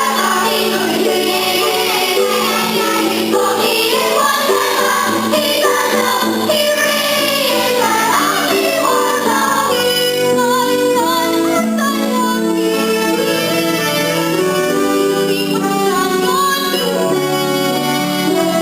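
Young voices singing a musical-theatre song with instrumental backing; about halfway through the singing gives way to steadier held notes.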